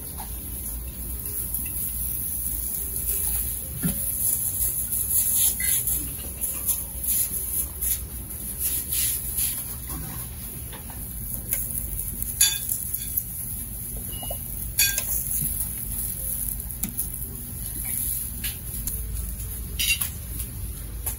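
Plates, bowls and cutlery clinking as people serve themselves at a buffet and eat, with scattered sharp clinks of china and metal, the loudest about halfway through, over a steady hiss.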